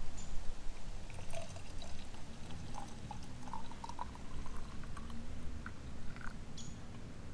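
Liquid being poured into a cup or pot while tea is made, with small trickling and clinking sounds over a low steady rumble.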